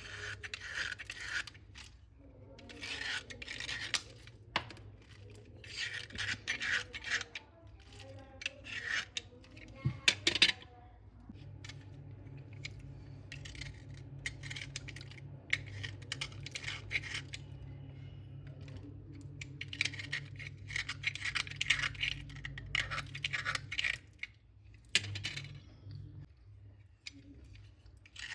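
Slate pencils crunching and crumbling in repeated bursts of gritty crackling and scraping, each a second or two long with short pauses, with one sharper crack about ten seconds in. A low steady hum runs underneath through the middle stretch.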